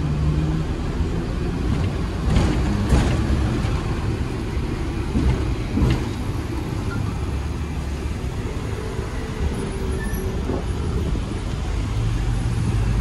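Hong Kong double-decker electric tram running on its rails, heard from on board: a steady low rumble with a few sharp knocks about two and a half, three and six seconds in, and road traffic around it.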